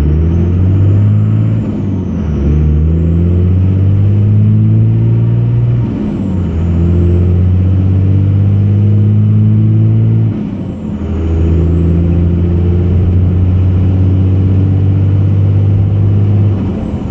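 2002 Cummins 24-valve 5.9-litre straight-six turbo diesel pulling hard under load through the gears. The engine note and a high turbo whistle climb, then dip briefly three times at the shifts. The owner hears a knocking or thumping under load around 1700–1800 RPM that goes away when the clutch is in or the pedal is released, and he takes it to be in the engine.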